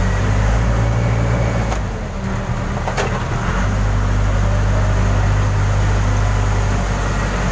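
Case 580 Super K backhoe's diesel engine running steadily under load while it tows a stuck crane free. Its hum sags briefly about two seconds in, with a couple of sharp knocks, then steadies again.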